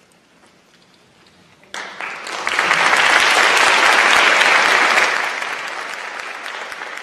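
Audience applauding: the clapping starts suddenly about two seconds in, swells, then slowly dies away near the end.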